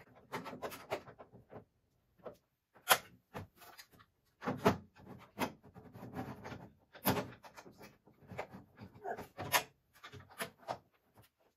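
Clamps and top rails of an Impact collapsible dog crate being clicked and knocked into place: a string of irregular sharp clicks and clunks, the loudest about three seconds in and again around the middle.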